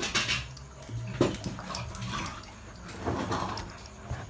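A dog scuffling about during play on a tiled floor: irregular rustling and short noisy bursts, with a sharp knock about a second in.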